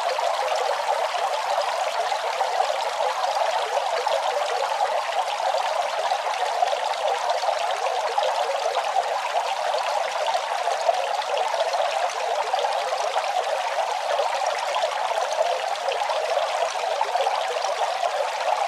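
Small garden fountain: water trickling and splashing steadily and unbroken.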